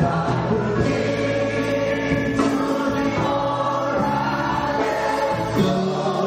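Congregation singing a hymn together in chorus, men's and women's voices.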